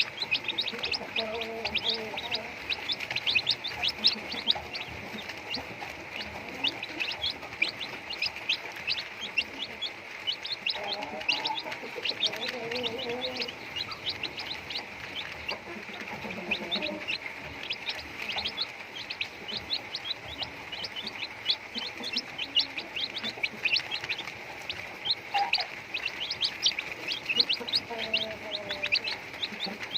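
Chickens clucking and calling every few seconds over constant, rapid high-pitched chirping.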